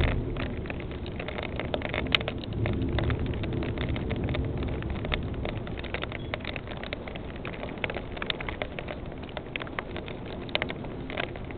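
Steady rain with many sharp taps of drops striking close by, while the low rumble of thunder dies away at the start.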